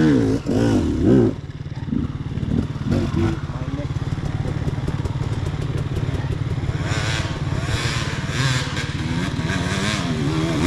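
Enduro dirt bike engine idling with a steady, rapid low putter. Other dirt bikes climbing the slope under throttle are heard revving, louder from about seven seconds in.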